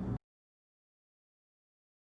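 Complete silence after a low, steady background sound cuts off abruptly just after the start: the soundtrack ends.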